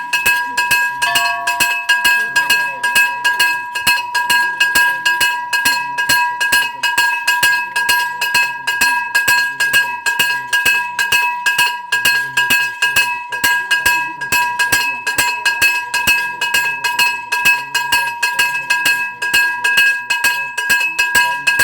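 Brass temple hand bell rung rapidly and steadily during an arati, its clapper striking several times a second and keeping a continuous high ringing tone.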